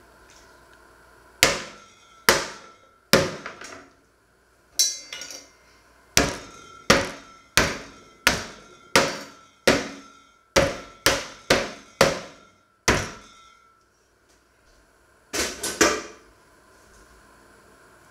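The bottom of a stainless steel saucepan pounding a slice of raw meat flat on a wooden cutting board, used as a meat mallet. There are about fifteen sharp blows in a fairly steady rhythm, each dying away quickly, then a pause and a quick burst of three or four blows near the end.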